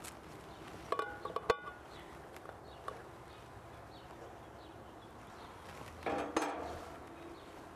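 A bee package being handled: a few short metallic clinks with a brief ring about a second in, then a short clatter about six seconds in.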